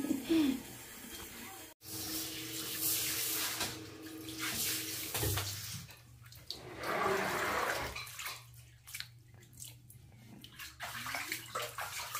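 Water splashing and sloshing as a wet kitten is bathed in a plastic basin, in several bouts of a second or two, followed by short, sharp splashes near the end.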